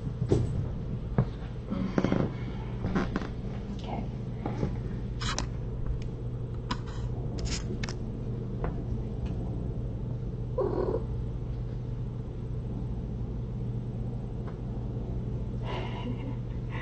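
Nursing mother cat purring steadily, with a few soft clicks and one short squeak about eleven seconds in.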